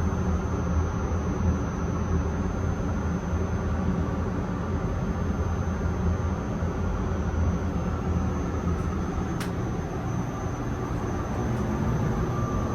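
Yokkaichi Asunarou Railway 260 series narrow-gauge electric train, an old nose-suspended-drive car, running along the track with a steady low rumble. There is a single sharp click about nine seconds in, and a faint whine rises near the end.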